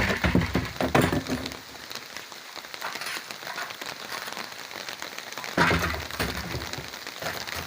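Rain falling steadily as an even hiss, with loud low knocks and rumbles about a second in and again around six seconds.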